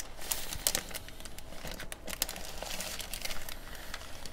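Thin plastic fish-shipping bag crinkling and crackling in irregular sharp bursts as hands grip and open it.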